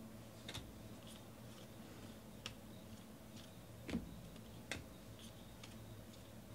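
Faint clicks and ticks of football trading cards being flipped off a stack in the hands, a few sharp ones at uneven intervals, the loudest about four seconds in, over a low steady hum.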